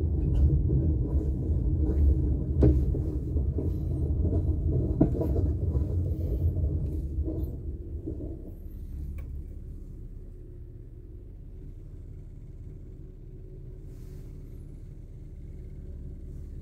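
Car driving slowly, heard from inside the cabin: low engine and road rumble with a few light knocks and rattles. About halfway through it dies down to a quieter steady engine idle as the car comes to a stop.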